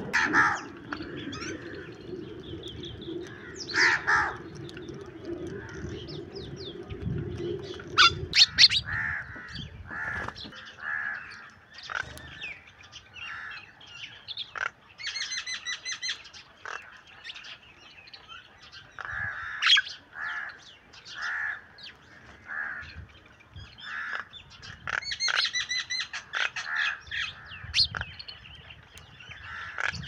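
House sparrows and mynas chirping and calling over and over in short repeated calls. A low steady hum runs under the first eight seconds, and a few sharp, loud clicks come about eight seconds in.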